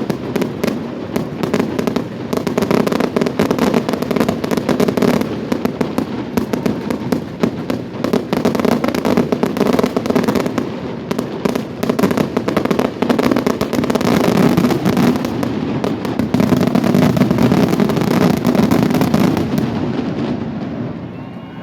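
Fireworks display: a dense, continuous barrage of shells bursting and crackling in quick succession, thinning out near the end.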